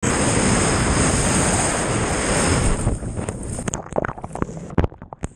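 Loud rushing of breaking surf and wind buffeting an action-camera microphone. About three seconds in, the rush drops to a muffled, quieter churning as the camera goes under water, with a few sharp knocks near the end.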